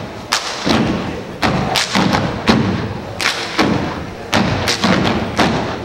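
A dance step team stomping and clapping in a syncopated rhythm: heavy foot stomps on the stage floor mixed with sharp hand claps, about two to three hits a second, ringing in the hall.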